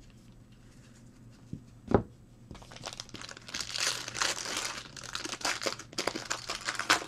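Foil wrapper of a baseball trading-card pack crinkling and tearing as it is opened, starting about two and a half seconds in. Just before, a single sharp knock.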